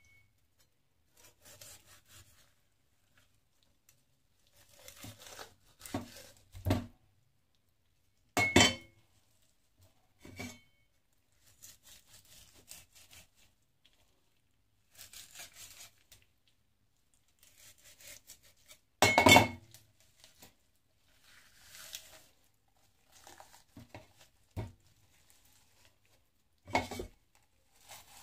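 A kitchen knife knocking and scraping on a plastic chopping board while a whole raw chicken is handled and cut up, with soft rustling of the wet skin between. There are scattered clatters at irregular intervals, the loudest about two-thirds of the way through.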